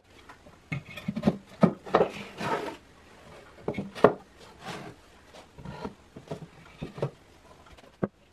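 Box-jointed pine 2x4 frame pieces handled and fitted together on a workbench: a string of irregular wooden knocks and clunks with short rubbing scrapes as the pieces are set down and pushed into each other. The loudest knocks come about two and four seconds in.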